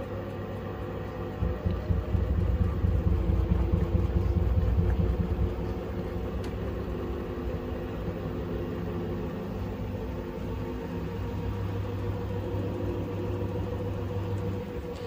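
LG 7 kg front-loading washing machine in an interim spin, the drum turning and picking up speed with a steady motor hum. About a second and a half in, a louder, uneven low rumble lasts some four seconds as the slightly unbalanced load shakes the drum, then the machine runs steadily again.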